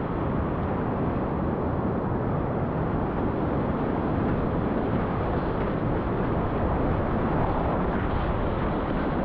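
Whitewater rapid rushing close around a kayak: a steady, loud wash of churning water with no letup.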